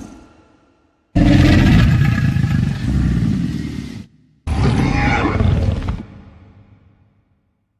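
Two deep roars of the Jurassic Park Tyrannosaurus rex sound effect. The first starts about a second in and cuts off abruptly after about three seconds; the second, shorter one follows half a second later and fades out.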